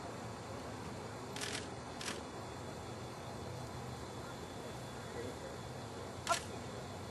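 Steady faint hiss of outdoor field ambience, broken by two brief hissy sounds about half a second apart and a louder short sound near the end.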